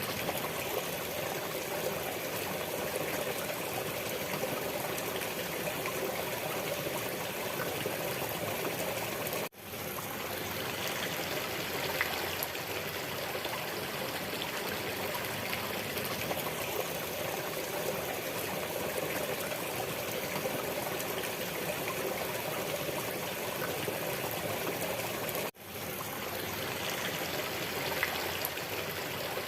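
Steady running water, like a stream. It drops out for an instant twice, about ten seconds in and again a few seconds before the end.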